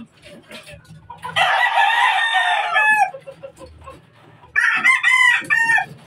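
Rooster crowing twice, each crow about a second and a half long and dropping in pitch at its end; the first starts about a second and a half in, the second about a second before the end.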